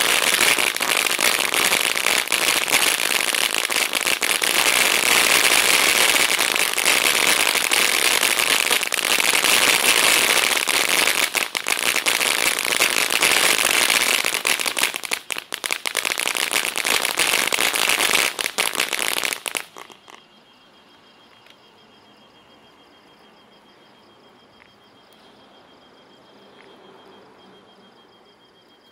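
Black Cat 200 g consumer firework fountain spraying red and green glitter sparks with a loud, dense hiss full of crackling pops. It stops suddenly about twenty seconds in, leaving only faint background with a thin steady high tone.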